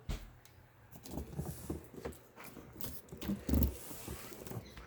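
Handling of a shop vacuum's parts and packaging: scattered light knocks, scrapes and rustles, with a dull thump about three and a half seconds in.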